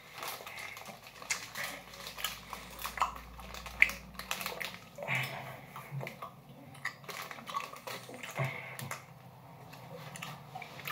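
Crinkling and rustling of a bag of sour gummy candies being handled, in many short, irregular crackles, with chewing and mouth noises in between.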